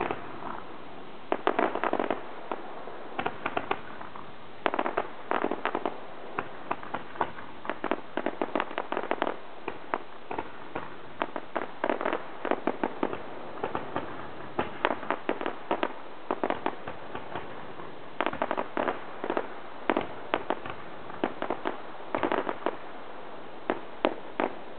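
Fireworks display: rapid pops and dense crackling from bursting shells and fountains, coming in quick clusters with short lulls between them.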